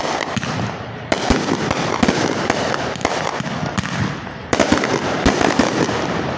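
Fireworks display: aerial shells bursting in quick succession, with dense crackling between the bangs. Fresh bursts come in sharply about a second in and again about four and a half seconds in.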